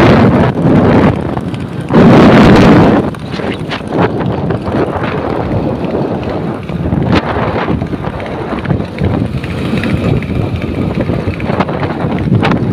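Wind buffeting the microphone on a moving motorcycle, with heavy gusts in the first three seconds, then a steadier rush of wind and motorcycle road noise.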